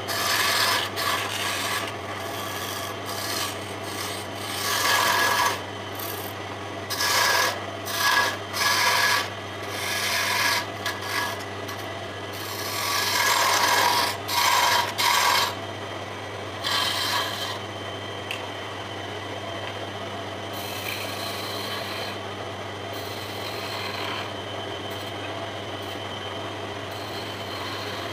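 Turning tools cutting a spinning wooden spindle on a wood lathe: a narrow parting tool scrapes into the wood in repeated bursts, each a second or so long, over the lathe's steady hum. About two-thirds of the way through the loud cuts stop, and a lighter, even cutting sound goes on.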